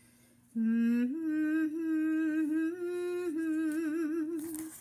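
A woman humming a slow melody with vibrato, starting about half a second in: a short low note, then a step up to a few long held notes.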